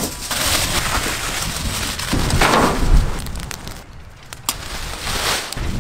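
Aluminium foil crinkling and rustling as hands fold it around a large piece of marinated mutton, with low wind rumble on the microphone. It grows quieter about four seconds in, with a single click.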